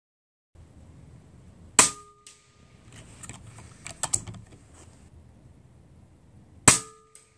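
Two shots from a .25-calibre regulated PCP bullpup air rifle, about five seconds apart. Each is a sharp crack followed by a short metallic ring from a steel target being hit. Between the shots there are faint clicks and handling noise as the rifle is cycled for the next shot.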